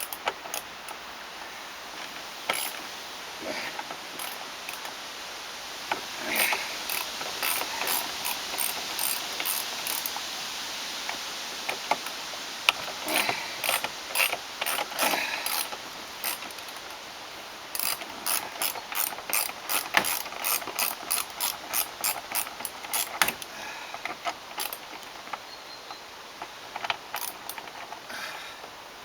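Hand ratchet wrench clicking as bolts are worked, in several runs of quick clicks at about three a second, with pauses between the runs.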